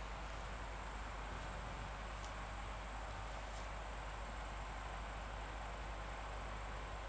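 Insects trilling in the grass: a steady, unbroken high-pitched drone.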